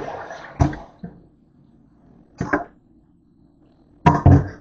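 Stainless steel bowl clanking against a stainless steel sink as it is handled. There are several separate knocks: a loud one at the start that rings briefly, another soon after, one midway, and a loud cluster near the end.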